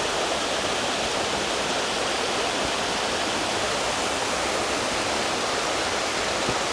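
A small waterfall of lake runoff splashing down, a steady rushing hiss.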